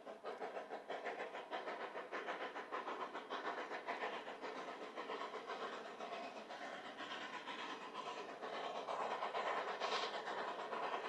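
Narrow-gauge train running, with a quick, regular clatter that grows slightly louder in the second half.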